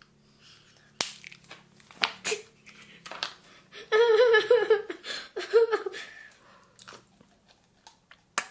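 Small plastic jelly cups being squeezed and popping open, with several sharp clicks over the first few seconds and another near the end. A stretch of laughing voices comes in the middle.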